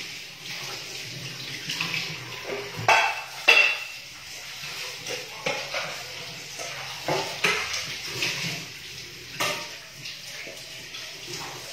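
Dishes being washed in a kitchen sink under running tap water, with plates and utensils clinking against each other; the loudest clatters come about three seconds in.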